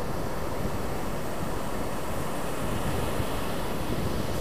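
Ocean surf breaking on the beach, a steady rushing noise, with wind buffeting the microphone.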